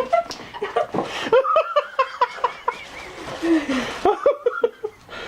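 People laughing hard, with quick runs of repeated ha-ha pulses.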